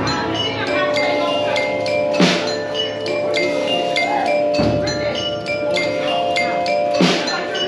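Music of short, ringing struck notes in a quick pattern, with a heavier drum-like hit about every two and a half seconds.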